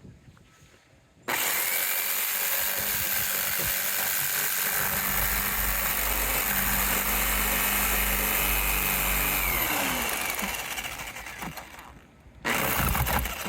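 Electric jigsaw cutting through the van's roof, trimming the fan opening. It starts about a second in and runs steadily for about nine seconds, then slows with a falling pitch and stops, and a short second burst of cutting comes near the end.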